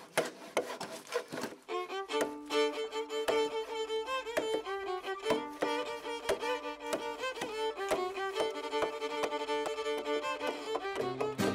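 Fiddle music, starting about two seconds in and carrying on from there. Before it begins, a quick run of sharp chops from a carpenter's axe hewing a timber beam.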